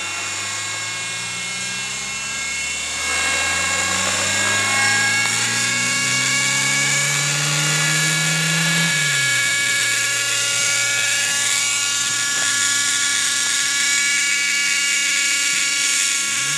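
Radio-controlled model helicopter's fuel-burning engine and rotors running with a high-pitched whine. The pitch climbs steadily for several seconds, drops back sharply about nine seconds in, then holds steady and rises again briefly near the end as the model flies close.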